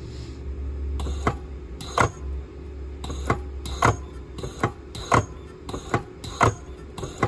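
Battery spot welder firing again and again, a sharp snap with each weld pulse as its electrodes tack a nickel tab onto lithium-ion cells. About a dozen snaps, irregularly spaced, some in quick pairs, over a low steady hum.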